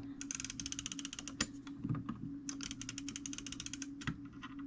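Rapid ratchet clicking from an antique fusee clock as the brass cable is wound onto the fusee cone, coming in two quick runs.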